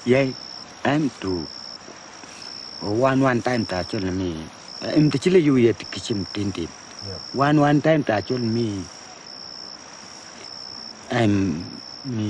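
A man talks in short bursts in a language other than English, while an insect, cricket-like, keeps up evenly spaced high chirps behind him.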